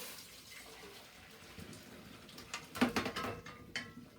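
Metal pot and kitchen utensils clattering as boiled pork ribs are handled: a few sharp knocks, loudest about three seconds in, with a brief metallic ring near the end.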